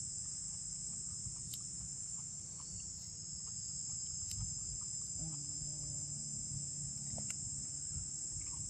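Steady high-pitched chorus of insects, with a few faint clicks over it.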